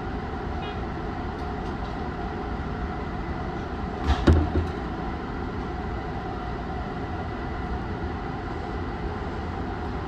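Tobu Tojo Line electric train heard from the cab end: a steady rumble with a faint steady whine, and a short double knock about four seconds in, the loudest moment.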